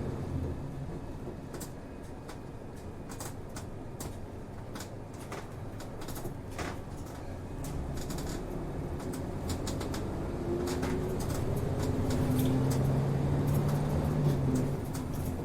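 Inside a city route bus: the diesel engine drones, getting louder and rising in pitch over the second half as the bus accelerates, then eases near the end. Scattered clicks and rattles come from the cabin fittings.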